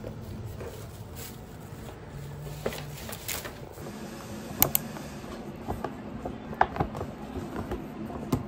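Paper gift bag being handled on a countertop: paper rustling with a run of sharp taps and clicks, the loudest about four and a half seconds in and again about six and a half seconds in, over a low steady hum.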